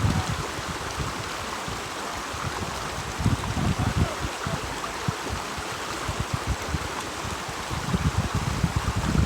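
Creek water rushing steadily, with gusts of wind buffeting the microphone in low rumbles.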